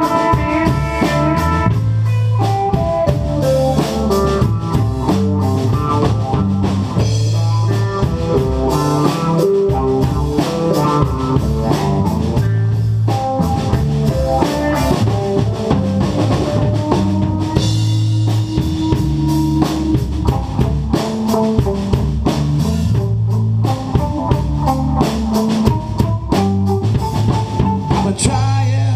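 Live band playing an instrumental jam: electric guitar, electric bass and drum kit together.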